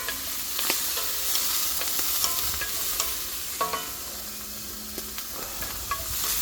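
Chicken pieces frying in hot coconut oil with a steady sizzle, while a spoon stirs them, knocking against the pot a dozen or so times, with some knocks ringing briefly.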